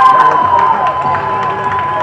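Children shouting and cheering together, with one long held high-pitched call standing out above the other voices.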